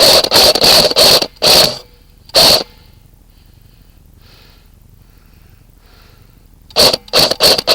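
Airsoft rifle fired in short bursts close to the microphone: a quick string of bursts, two more single bursts, a pause, then another quick string near the end, suppressing fire to pin down an opponent.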